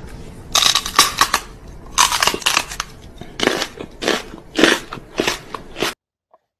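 Small black dog's mouth sounds close to the microphone: short crackling, crunching bursts in irregular clusters, stopping abruptly near the end.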